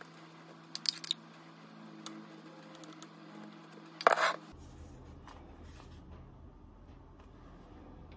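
Metal spoon clinking against a glass sauce jar and a metal sheet pan while pizza sauce is spooned out and spread: a few quick light clinks about a second in, then a louder clink about four seconds in as the spoon goes into the jar.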